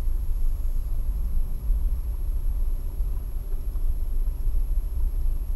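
Low, steady rumble of a car's engine and road noise, heard from inside the cabin as the car drives along.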